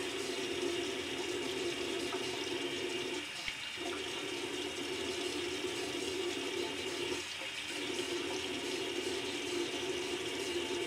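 Water running steadily from a bathroom tap into a sink, its sound changing briefly twice, about three and a half and seven and a half seconds in.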